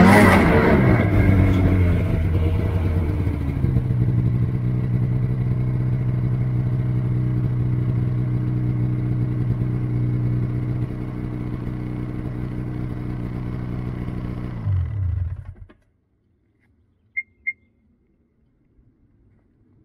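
A motor vehicle's engine settles and runs steadily at idle, then is switched off about fifteen seconds in. Two short high beeps follow a moment later.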